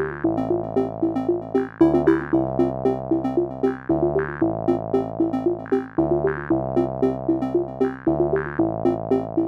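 Electronic synthesizer music: a repeating melodic figure over sustained chords that change about every two seconds.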